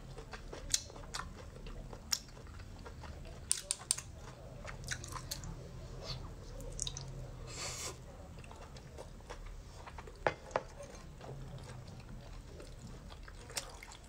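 Close-miked wet chewing of cooked shellfish and sea snail meat, with scattered sharp mouth clicks and smacks. About seven and a half seconds in there is a short slurp from a bowl.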